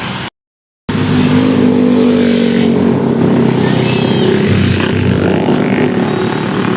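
A bus engine running loud and close by. It sets in about a second in, after a brief silent break in the sound.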